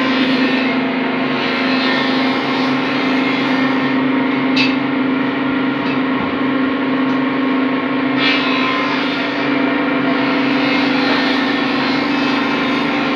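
A steady mechanical drone with one strong low hum, which does not change, and two sharp knocks, one about four and a half seconds in and one about eight seconds in.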